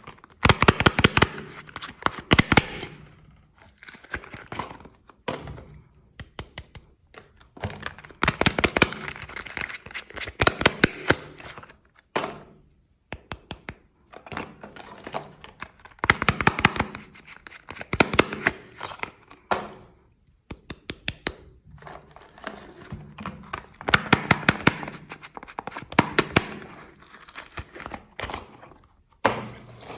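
Soap packaging being unwrapped and torn open: dense crinkling and crackling with sharp clicks, in spells of a few seconds with short pauses between.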